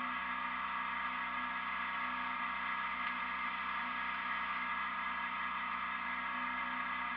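Diesel engine running steadily at an even pitch, with a light regular pulse in its low hum.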